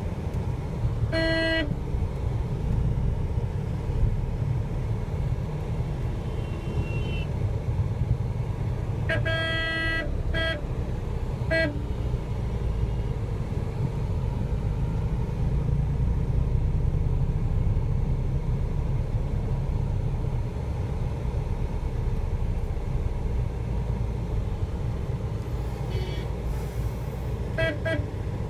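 Steady low rumble of a road vehicle driving, overlaid with vehicle horn toots. There is a short toot about a second in, a blast lasting about a second followed by two quick toots around ten seconds in, and two quick toots near the end.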